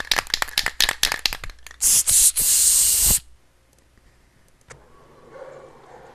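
Aerosol spray-paint can being shaken, its mixing ball rattling rapidly, then sprayed: a short hiss about two seconds in and a longer, loud hiss of about a second that cuts off sharply.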